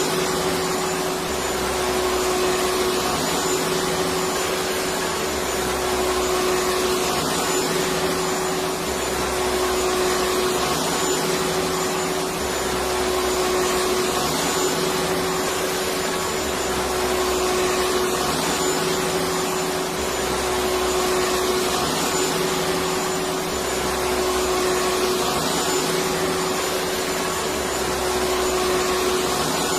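Electric vacuum cleaner running steadily: a continuous whooshing whir with a steady motor hum, and a low rumble that rises and falls about every two seconds.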